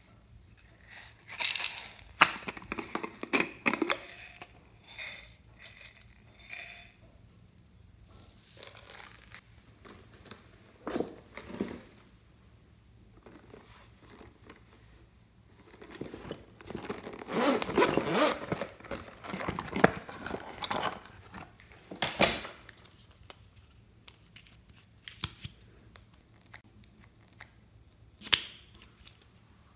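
Close-up handling of makeup cases and cosmetic tubes: irregular bursts of rustling and scraping as the plastic cases are turned and opened by hand, with a few sharp clicks, one near the end as an eyeliner cap is pulled off.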